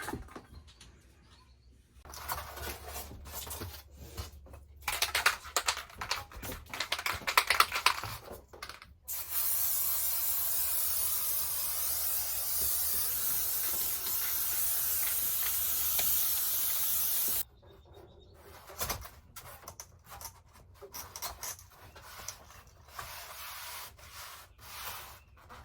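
Aerosol spray adhesive hissing in one steady, continuous spray of about eight seconds that cuts off sharply, coating the wall for the insulation. Before it come crackling and rustling sounds of the insulation sheet being handled, and after it quieter rustles and taps.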